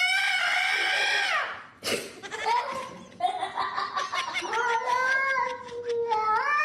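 A cat yowling in long drawn-out meows that slide up and down in pitch, several in a row.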